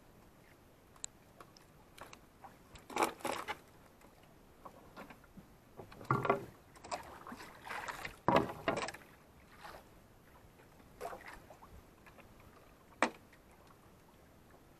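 Water and handling sounds in a small outrigger fishing boat: several separate bursts of splashing and knocking against the hull, with one sharp knock near the end.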